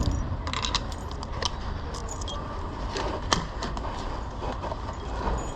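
Small metal objects being handled: a run of light clinks and jingles, over a steady low street rumble.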